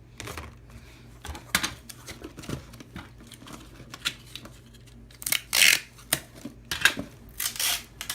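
Irregular clicks and taps with short rustling, scraping noises, like small objects being handled; the loudest rustles come about five and a half and seven and a half seconds in.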